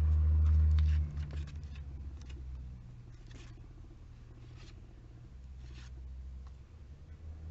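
Pages of a glossy paper catalogue being turned by hand: about five short paper swishes, roughly one a second. A low rumble is loudest in the first second.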